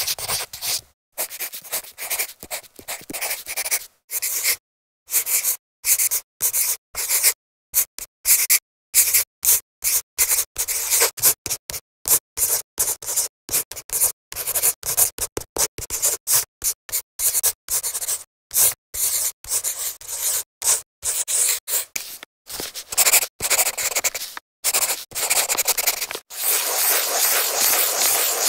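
Graphite pencil scratching across paper in a series of separate strokes and scribbles, each cut off cleanly by silence, with a longer unbroken scribble near the end.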